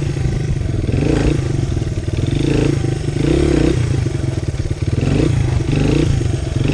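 1999 Honda XR100's single-cylinder four-stroke engine running under way, its pitch rising and falling several times as the throttle is worked.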